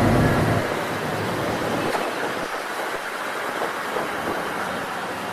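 A vehicle's low rumble fading away in the first half-second, then steady road traffic noise.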